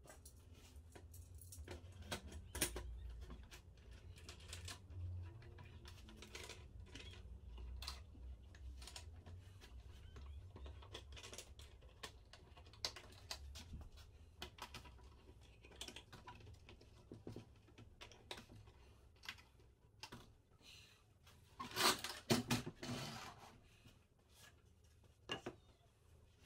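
Clamps and plywood panels handled and knocked about during a cabinet glue-up: scattered light clicks, taps and rattles, with a louder cluster of knocks a little over three-quarters of the way through.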